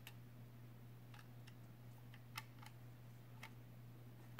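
Faint, irregular clicks from a hard drive being handled in its plastic mounting bracket as the bracket is worked loose from its rivet pins, over a steady low hum.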